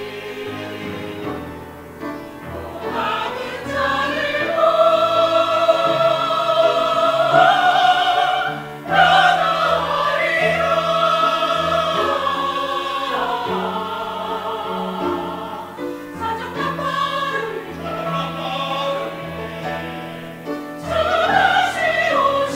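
Mixed choir of men's and women's voices singing a hymn in Korean, in sustained held lines. It swells louder about four seconds in, breaks off briefly near the middle, and swells again near the end.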